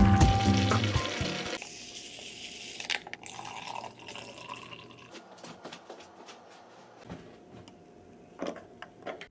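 Liquid poured into a double-walled glass mug, splashing as it fills, heaviest in the first couple of seconds and then trickling more quietly. Near the end come a couple of light knocks against the glass. Background music fades out in the first second or so.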